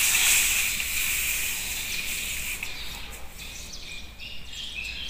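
Newspaper rustling as a hand handles the sheet, loudest in the first second and fading, with faint high chirps behind it.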